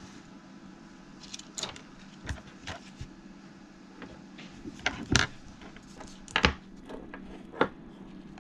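Handling noises: a series of short clicks and knocks as cables, plug connectors and a small plastic controller are moved about and set down on a tabletop, the loudest three in the second half. A steady low hum runs underneath.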